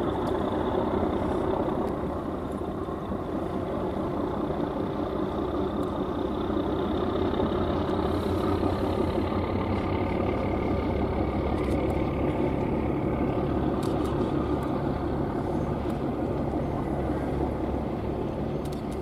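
Harbour tugboats' diesel engines running steadily while working the sail training ship, a low, unbroken rumble.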